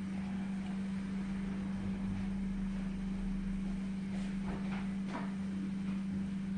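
A steady low hum, with a few faint clicks about four to five seconds in.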